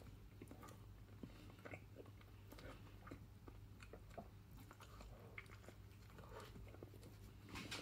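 Faint chewing and small wet mouth clicks of a man eating a soft bread roll filled with a runny-yolked fried egg.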